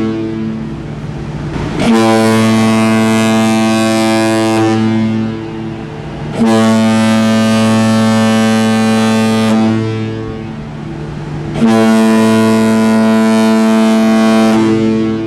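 Ship's horn sounding three long, steady, deep blasts, each about three and a half seconds, spaced about five seconds apart, the tone fading away between blasts.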